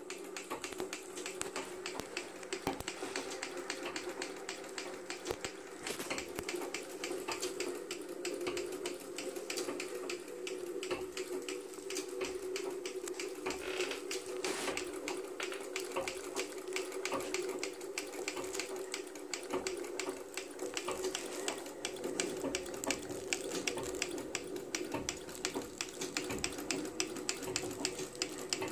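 Singer Model 66 treadle sewing machine running steadily, its mechanism giving a fast, even clatter of clicks over a steady hum.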